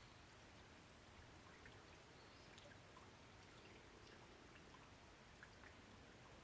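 Faint rain: a soft steady hiss with scattered single drops dripping at irregular moments.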